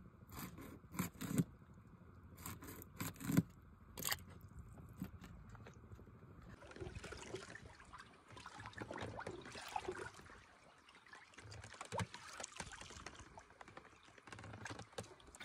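A run of sharp clicks as scissors snip through small bait fish. From about six seconds in, water trickles and laps against the wooden boat with an uneven crackle.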